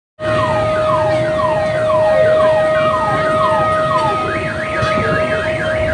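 Electronic siren sounding to mark the time to break the Ramadan fast: a falling sweep repeated about twice a second over a steady tone, switching about two thirds in to a quicker up-and-down warble.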